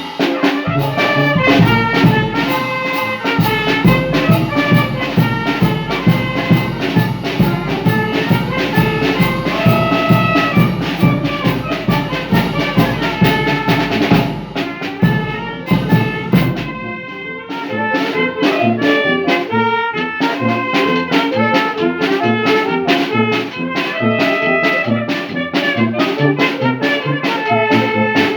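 Brass band music: trumpets and trombones playing a tune over drums with a steady beat. The deep bass part drops out about two-thirds of the way through.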